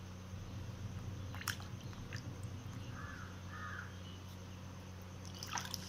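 Water splashing and dripping in a plastic tub as a cat's paw dips in after live fish: a few short, faint splashes, the clearest cluster near the end.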